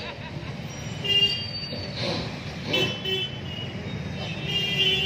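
Street traffic with a steady low rumble and vehicle horns honking: a short toot about a second in and a longer one near the end, with faint voices in between.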